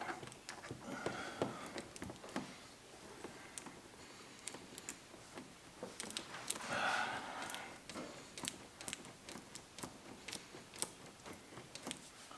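Faint scattered clicks and light handling noises of hands pressing and working a glued emblem cover onto a car's front badge, with a soft brushing sound about seven seconds in.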